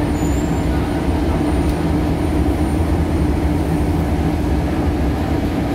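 Inside the saloon of a Scania L94UB Wright Solar single-deck bus: a steady engine drone with a low rumble, holding even throughout.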